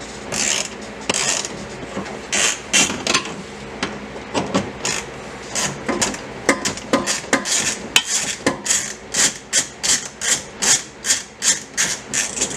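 Hand ratchet on a swivel extension being worked back and forth to undo an M10 triple-square bolt on an exhaust hanger bracket, each stroke a short rasping burst of clicks. The strokes come irregularly at first, then settle into a quicker run of about three a second for the second half.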